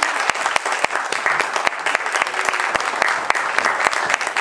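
Audience applauding, many hands clapping steadily at once.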